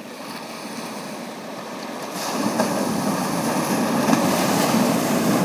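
Ocean surf breaking and washing over lava rocks: a steady rush of water that swells louder about two seconds in.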